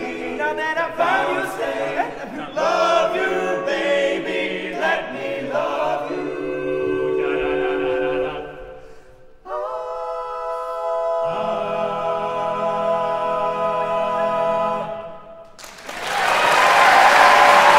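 All-male a cappella group singing in close harmony, ending on a long held chord. Loud audience applause starts near the end.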